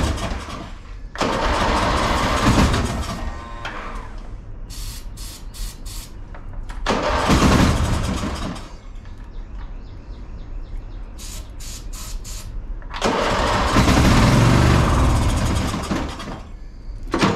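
Briggs & Stratton engine on an old riding lawn mower being cranked three times, each try lasting two to three seconds, sputtering and briefly catching on starting fluid without staying running. Between the tries there are short, sharp hissing bursts.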